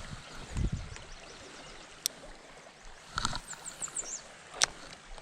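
Creek water running steadily, with a dull knock about half a second in and two sharp clicks, about two seconds and four and a half seconds in.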